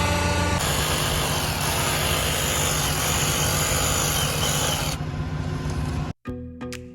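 A heavy engine running steadily with mechanical noise. The sound changes about half a second in and dulls around five seconds. It cuts off just after six seconds, and plucked music starts.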